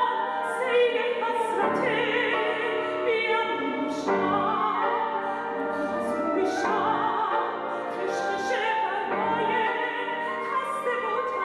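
A woman singing an old Iranian song in an operatic, classical style, holding notes with vibrato.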